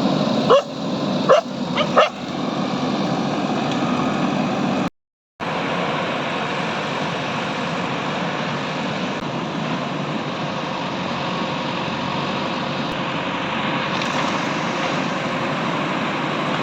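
A dog barks about four times in the first two seconds, then a steady rushing background noise continues, cut off briefly about five seconds in.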